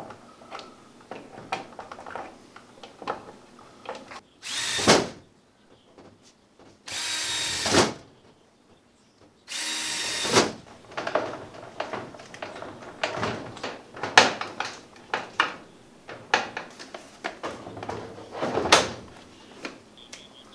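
Cordless drill-driver driving screws to fasten a plastic wall-mount bracket, in three runs of about a second each. After these come many short clicks and knocks of parts being handled and fitted.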